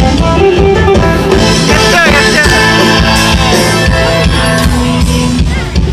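Loud live band music with a singer and a steady beat, coming from a concert stage.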